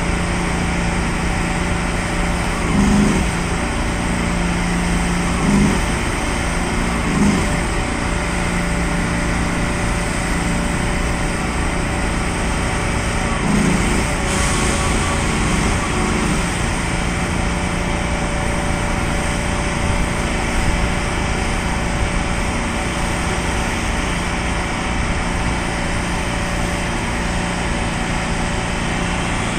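Heavy diesel engine running steadily at low speed, a constant drone with a steady low hum, swelling briefly a few times.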